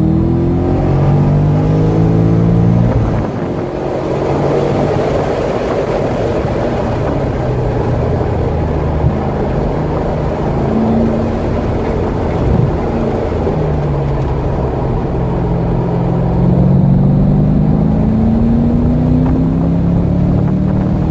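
C6 Corvette V8 engine under hard acceleration on track. The engine note rises at the start and backs off about three seconds in. Through the middle it runs at lower throttle with wind and tyre noise. From about fourteen seconds in, it pulls hard again, its pitch climbing steadily.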